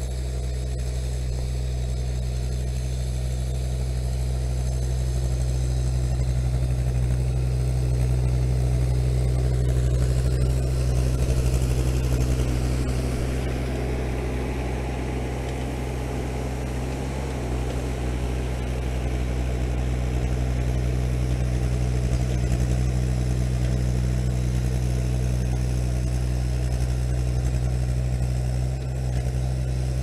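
International Harvester TD-6 crawler's diesel engine running steadily while pushing snow, growing a little louder about ten seconds in and easing back a few seconds later.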